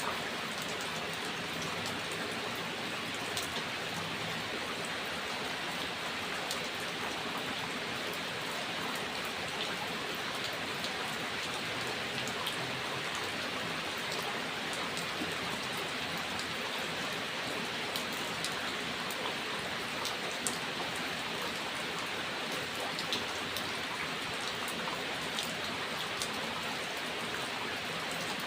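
Steady rain falling, with scattered individual drop ticks over a constant hiss.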